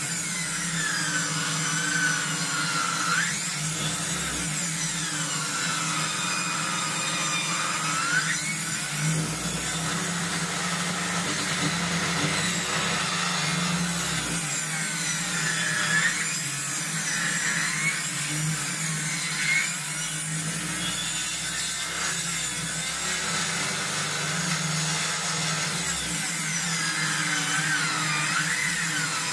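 Bench-mounted circular saw running steadily while ripping a birch log lengthwise. Its whine dips and recovers in pitch again and again as the log is fed through under load.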